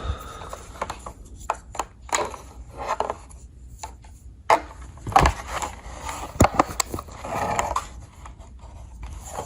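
Handling noise from a metal multi-tool being turned over in the hands: scattered clicks and taps with short rubbing and scraping.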